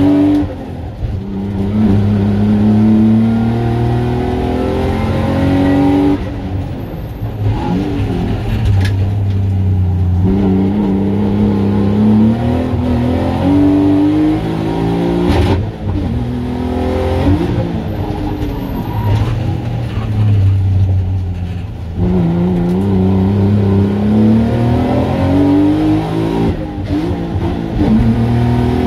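Race car engine heard from inside the stripped cabin while lapping a circuit. It revs hard and climbs in pitch again and again, with sharp drops between the climbs at gear changes and when lifting off for corners.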